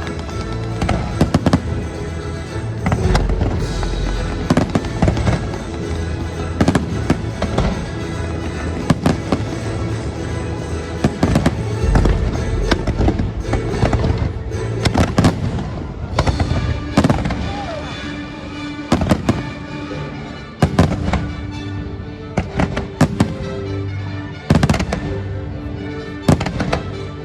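Fireworks show: many shells bursting in quick succession, sharp bangs with a few deeper booms, over the show's music soundtrack.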